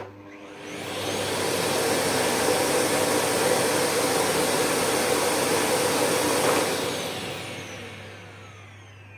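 Electrolux SilentPerformer Cyclonic bagless vacuum cleaner's 650-watt motor switched on with a click and spinning up, running steadily for about five seconds, then switched off and winding down with a falling whine.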